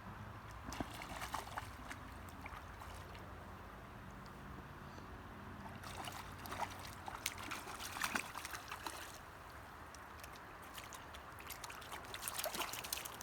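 Faint trickling water, with scattered small clicks and knocks in a few clusters.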